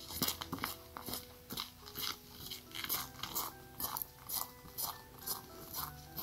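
Footsteps crunching on a frozen dirt and gravel path, about two steps a second, over soft background music.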